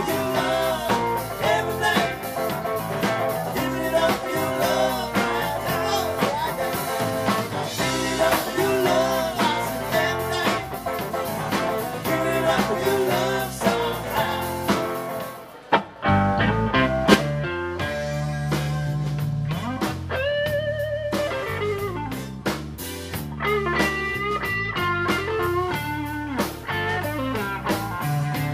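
Live blues band playing an instrumental passage on electric guitars, bass and drum kit. About halfway through, the band drops out for a moment, then comes back in with a loud drum hit.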